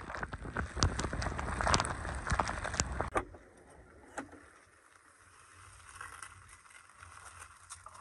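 Handling noise: rustling clothing and knocks on the phone as it is moved about, with a sharper knock about three seconds in. After that only faint rustles remain.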